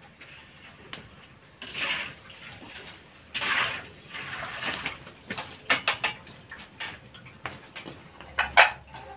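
Krupuk crackers frying in hot oil in a wok, sizzling in several short bursts as they go into the oil, with clinks of a metal spatula against the wok and a loud, sharp sound near the end.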